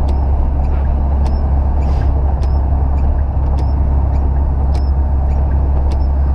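Inside the cabin of a square-bodied VW Gol with the CHT 1.6 engine at highway speed: steady engine drone and tyre and road noise on a wet road. A light tick comes about every half second.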